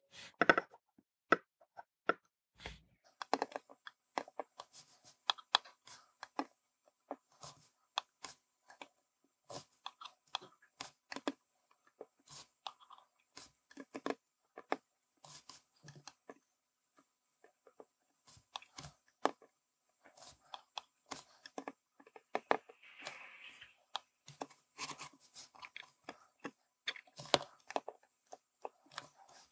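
Faint, irregular small clicks and taps of fine steel tweezers placing tiny surface-mount resistors on a circuit board.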